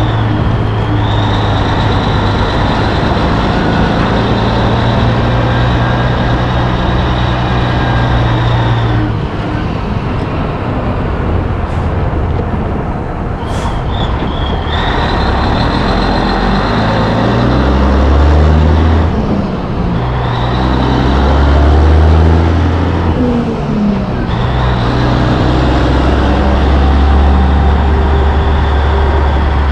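Cabover Peterbilt 362 semi's diesel engine pulling away and working up through the gears: the engine note climbs, breaks off at each shift and climbs again several times. A high whine rides over it and drops out at each shift.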